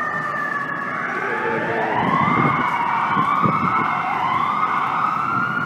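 Fire engine's electronic siren on a city street: a slow falling wail at first, then quick rising sweeps repeating about once a second, over steady traffic noise.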